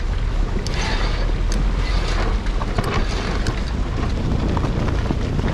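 Wind buffeting the microphone on a sailboat under way, with water rushing and splashing along the hull in irregular surges.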